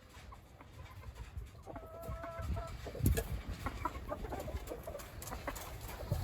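Gamefowl chickens clucking, with a short held call about two seconds in and scattered brief calls after it.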